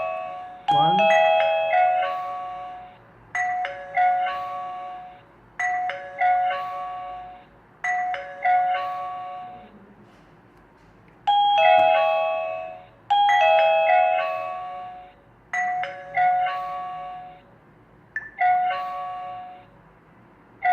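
Wifi video doorbell alert: an electronic doorbell chime of several clear notes plays over and over, about every two to three seconds, with a slightly longer pause about halfway through.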